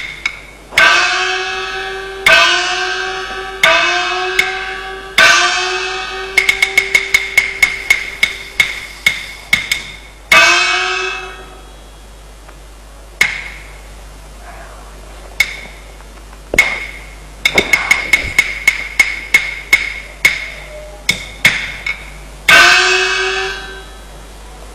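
Chinese opera percussion band accompanying stage movement: fast runs of sharp wooden clapper and drum strokes, punctuated by gong and cymbal strikes. The small gong rings with a slight upward slide in pitch after each hit, and the middle stretch is sparser and quieter.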